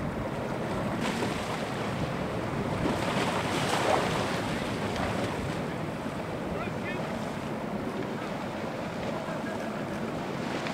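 Wind buffeting the microphone over choppy open water, with the wash of waves and spray, swelling louder about four seconds in.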